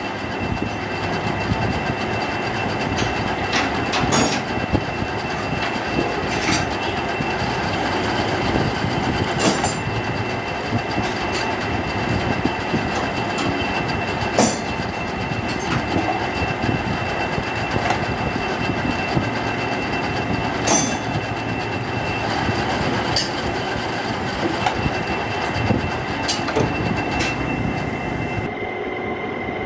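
Metal lathe running, turning a tractor hydraulic lift lever: a steady machining noise with a constant high whine and scattered sharp clicks. Near the end the higher whine stops.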